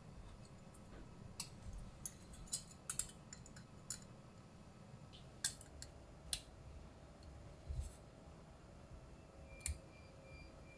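Irregular sharp clicks and small knocks from computer hardware being handled and fitted, about ten in all, with a duller thump late on.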